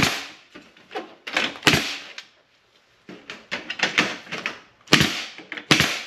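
Pneumatic nail gun firing repeatedly to fasten a J-channel trim at the foot of a corrugated galvanized metal wall: a series of sharp shots, some in quick succession, with a short pause about halfway.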